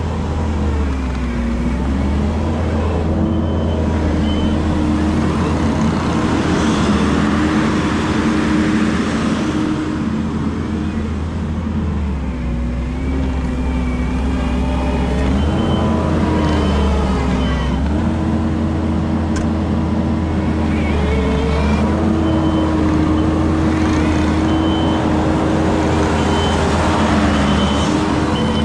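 Kubota SVL75 compact track loader's diesel engine working under load as the machine drives on ice on studded rubber tracks; the engine note sags and picks back up several times, over scraping and clatter from the tracks. A reversing alarm beeps in short runs, most steadily near the end.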